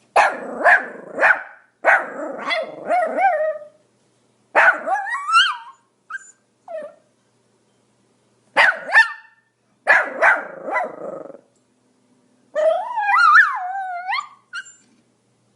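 Pomeranian barking in quick clusters of several barks with short silent gaps between them. Near the end comes one longer, wavering cry whose pitch rises and falls.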